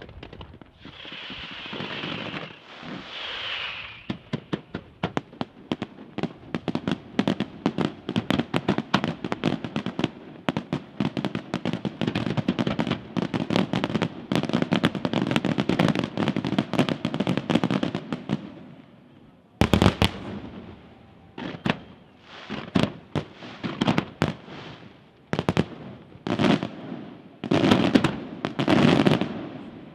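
Professional fireworks display: two hissing swells in the first few seconds, then a long, dense run of rapid crackling reports and bangs. After about twenty seconds this breaks into separate loud shell bursts coming in quick clusters.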